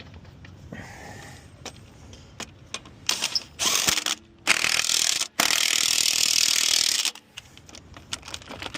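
A few light metal knocks, then a loud air tool running in bursts for about four seconds, with two short breaks, while working on the wheel nuts.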